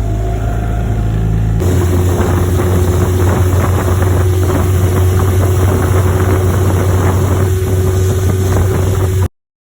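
Small 8 hp Mercury outboard motor running with the boat under way, with wind and water noise. About a second and a half in the engine note steps up to a steady higher pitch, then the sound cuts off suddenly near the end.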